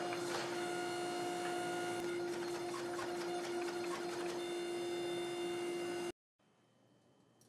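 Gas forge running: a steady hum with scattered crackles. It cuts off abruptly about six seconds in, leaving near silence.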